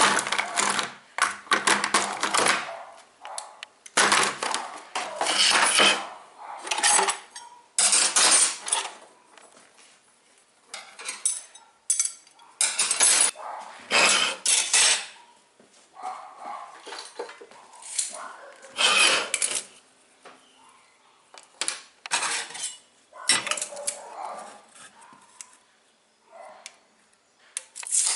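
Pliers and other metal hand tools clattering and clinking as they are picked up, shuffled and set down, in irregular bursts with short pauses between.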